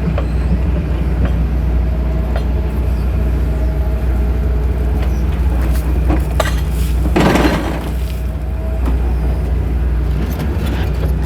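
John Deere excavator's diesel engine running steadily under work, with a few short metallic clinks and a brief louder rattle about seven seconds in.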